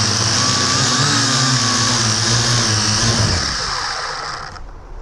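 Syma X8C quadcopter's electric motors and propellers buzzing steadily, heard from a camera riding on the drone. About three seconds in they wind down and stop as the drone sets down in the snow.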